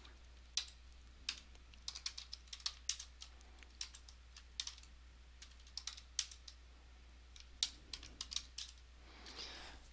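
Computer keyboard keystrokes, irregular single presses and quick runs of keys, typing menu options into a terminal.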